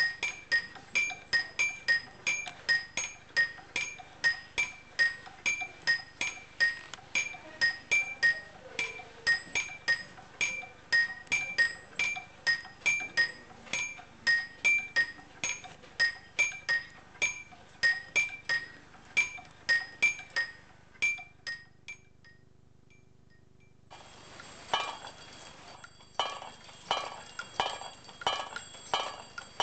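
Wooden hammers of a cam-driven kinetic sculpture striking red-painted metal bars in a steady beat, about two and a half ringing strikes a second, slowing and stopping after about twenty seconds. After a short pause, a small brass bell on a metal frame jingles rapidly to the end.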